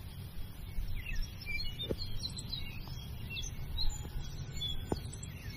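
Small songbirds chirping and twittering, many short high chirps one after another, over steady low background noise, with a couple of light knocks.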